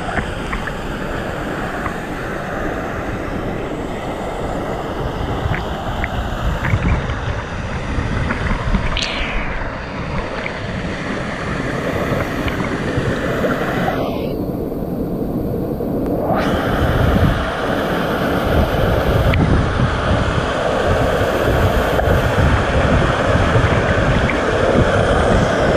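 Artificial rock waterfall pouring and splashing into a pool: a steady rushing of water that grows louder as it gets closer near the end. The sound goes briefly muffled about halfway through.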